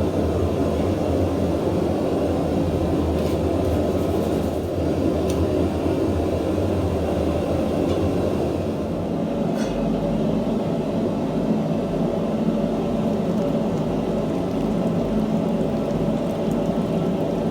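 A steady low rumble with no beat or rhythm, with a few faint ticks. About nine seconds in, its deepest hum drops lower in pitch.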